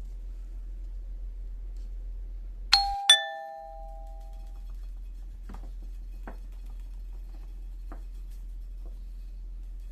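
A two-note ding-dong chime, a higher note and then a lower one that rings on for a second or so, like a doorbell or door-entry chime, about three seconds in. A few faint ticks follow, over a steady low hum.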